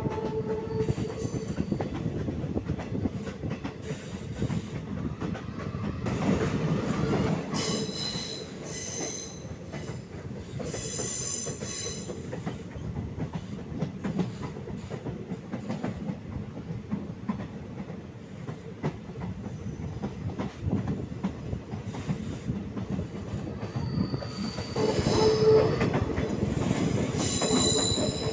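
ICF passenger coaches running on a curving line: steady rumble and clatter of the wheels on the rails, with spells of high-pitched wheel squeal on the curves about eight seconds in and again near the end.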